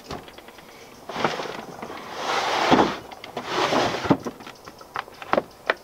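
Plywood chuck-box camp kitchen being folded shut: wooden panels scrape and knock together. Several separate sharp clicks follow in the last couple of seconds, as the metal flight-case latch hardware is worked.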